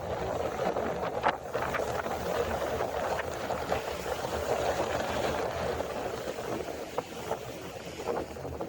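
Wind blowing across the microphone over the wash of the sea, with scattered sharp taps through it.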